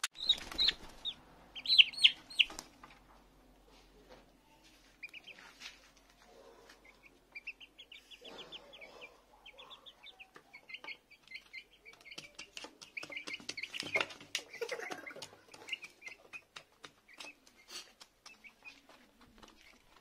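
Young chickens making short repeated calls and clucks while they eat, over many sharp clicks of beaks pecking grain from a plastic feeder bowl. The loudest calls come in the first few seconds.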